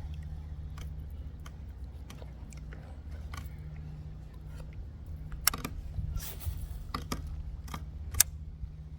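Scattered light clicks and clinks of fishing tackle being handled, a few sharper ones in the second half, over a steady low hum.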